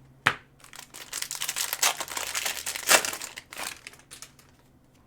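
A Mosaic football card pack's wrapper being torn open and crinkled in the hands: a sharp snap just after the start, then about three seconds of dense crackling crinkle that dies away before the end.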